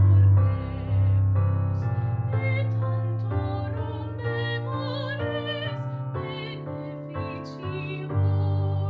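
Classical music: a singing voice with vibrato over a sustained accompaniment with a strong bass note, the notes changing about once a second.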